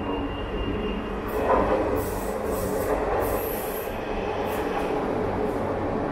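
TCDD E32000 Marmaray electric commuter train pulling into the platform, its running noise building as it passes close by. Several brief high-pitched wheel squeals come from about two seconds in.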